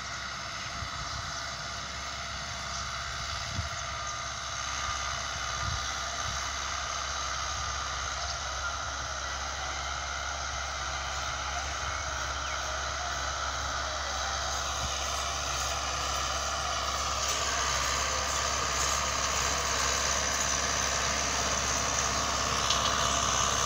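Euro Ford 5880 tractor's diesel engine working under load, pulling a fully opened disc harrow through tilled soil. It is steady and grows gradually louder as the tractor draws closer.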